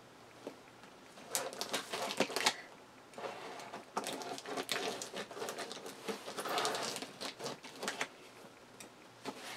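Scissors slitting the packing tape on a cardboard shipping box: irregular clicks and scraping of tape and cardboard, in several strokes.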